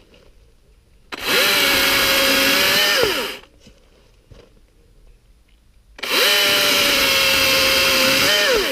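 Husqvarna 120i battery chainsaw run twice at full speed, each burst about two seconds of a steady high whine, cutting through small 2 to 4 inch wood; each time the trigger is released the motor winds down with a falling pitch.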